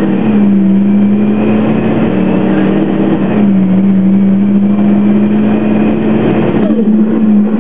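2003 Orion VII bus's Detroit Diesel Series 50G natural-gas engine and Allison B400R automatic transmission running: a steady hum holding one pitch, dipping slightly about a third of a second in and again about three and a half seconds in. Near the end the deep rumble drops away and a tone slides down in pitch.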